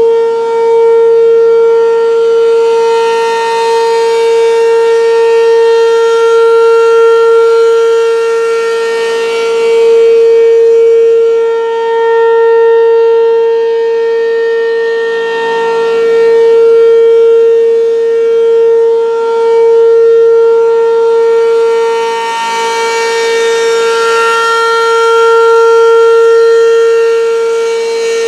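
ASC RM-127 outdoor warning siren sounding a steady tone that holds one pitch, with no rise or fall in pitch, during its test. The sound slowly swells and fades in loudness and brightness over several seconds at a time.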